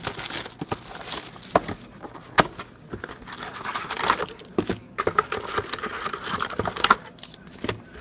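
Shrink-wrap being torn off a cardboard trading-card box, then the box opened and foil card packs pulled out and set down on a table. Crinkling and rustling throughout, broken by sharp taps and clicks.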